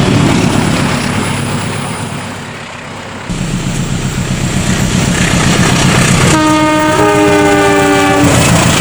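Train rumble fading away, then, after an abrupt jump, a louder locomotive rumble grows. About six seconds in, the train sounds its multi-tone air horn for about two seconds as a greeting, with a second note joining partway through.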